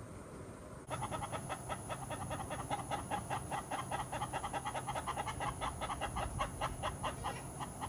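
A chicken clucking in a fast, even run of short calls, about six a second, starting about a second in.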